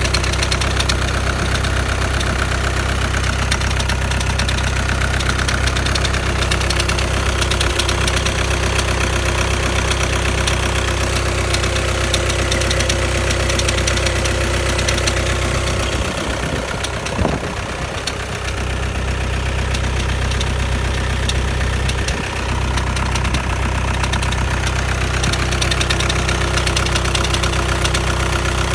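A 2011 VW Touran's 1.6 TDI (CAYC) four-cylinder diesel idles shortly after a cold start, with a steady knocking rattle that the owner suspects comes from a bad dual-mass flywheel. The sound is briefly quieter a little past the middle.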